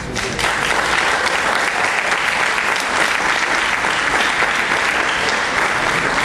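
Audience applauding: dense, steady clapping from many people that starts suddenly and holds at an even level.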